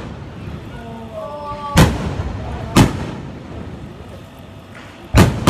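Fireworks shells bursting in the air: three loud booms, two about a second apart and a third near the end, each trailing off in a short echo.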